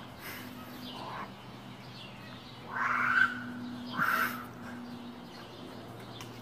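Crow cawing: a few faint caws, then two loud harsh caws about three and four seconds in, over a low steady hum.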